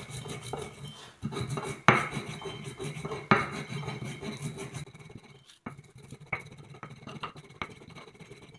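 Stubby stone pestle (ulekan) grinding coriander seeds and salt on a flat stone mortar (cobek): a gritty rubbing and crunching, with sharp knocks of stone on stone about two and three and a half seconds in. The strokes grow quieter and sparser in the second half.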